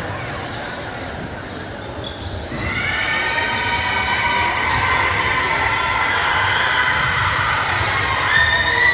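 Basketball gym sounds: a ball being dribbled on a hardwood court in a large echoing hall. From about two and a half seconds in, several steady high tones sound together and hold, and another comes in near the end.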